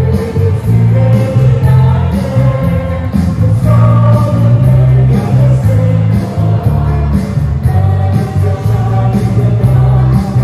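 A live praise band playing a worship song: electric bass, acoustic guitar and keyboard under several voices singing together, over a steady beat.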